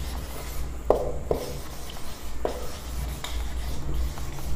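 Marker pen writing on a whiteboard: a few short, separate strokes, the clearest about a second in.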